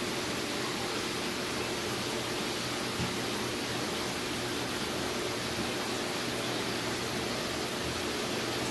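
Steady rushing hiss of aquarium water circulation and pumps, with a faint steady hum and one soft knock about three seconds in.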